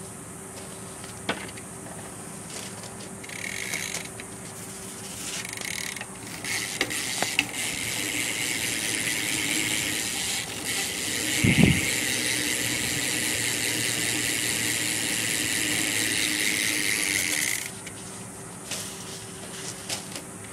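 DK rear hub of a BMX bike ratcheting as the back wheel is spun: a couple of short spurts, then a steady high-pitched buzz of clicks that stops suddenly near the end, with one thump about halfway through.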